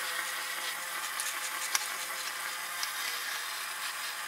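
Butter frying in a pan, a steady sizzling hiss, with a few faint ticks.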